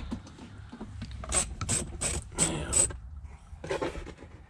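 Hand ratchet wrench clicking through a run of about five quick strokes, a third of a second apart, loosening the bolts that hold the car's centre console. Quieter rattling follows near the end.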